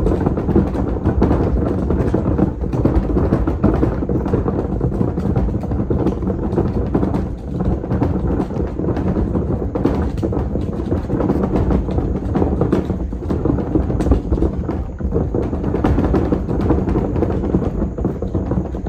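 Empty wheeled garbage can being pulled over a gravel driveway: a loud, continuous rumble and rattle of the hard wheels and hollow bin bouncing over the stones, with scattered clacks.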